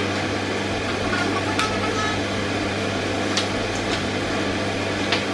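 Steady low hum of a running appliance, with a few light taps as placemats are laid on a table.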